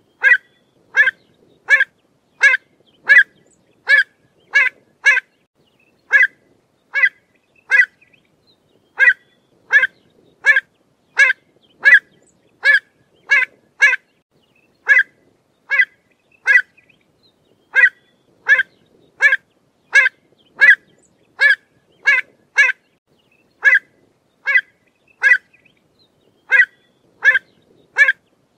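Pied avocet calling: short, clear calls repeated one to two a second in runs of several, with brief pauses between the runs.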